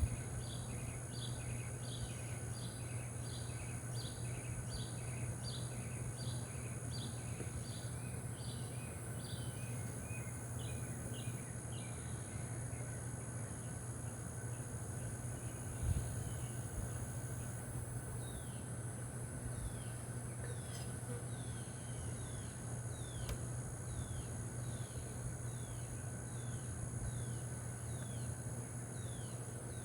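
Honeybees buzzing in a steady hum around an open hive. Over it a bird sings two long runs of quick, repeated falling chirps, about two a second, and a steady high insect drone runs underneath. There is one soft thump about halfway through.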